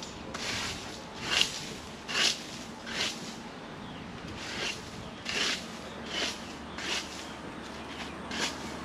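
Rhythmic scraping strokes, about one every three-quarters of a second, some louder than others.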